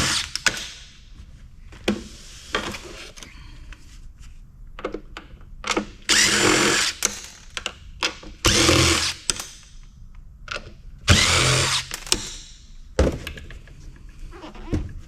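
A power drill driving screws out of the kiosk's sheet-metal housing in several short runs of about a second each, with clicks and taps of metal between them.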